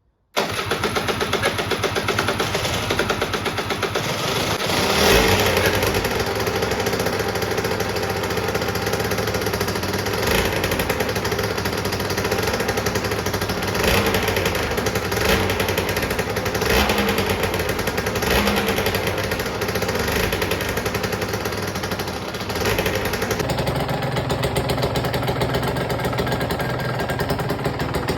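Aprilia RS 140 two-stroke motorcycle engine starting up and running just after a rebuild, its throttle blipped in short revs several times over a fast, uneven idle.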